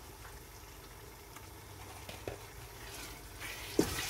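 Mutton masala sizzling gently in a metal pot, then a wooden spatula stirring it, the sound growing louder near the end, with a sharp knock against the pot.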